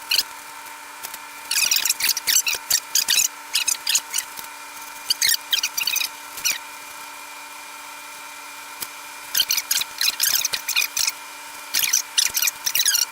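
Paintbrush bristles stroking paint onto a wooden surface: runs of quick, scratchy back-and-forth strokes with short pauses between them, over a steady background hum.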